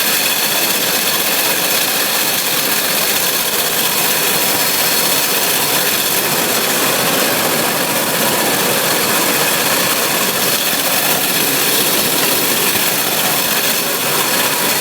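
New Holland 848 round baler and the tractor driving it, running steadily with an even mechanical drone and a few faint high whining tones.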